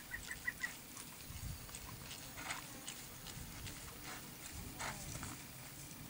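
Hooves of a sorrel tobiano filly jogging on pasture grass, soft irregular thuds, with a few light clicks from her tack. A quick run of high chirps sounds in the first second.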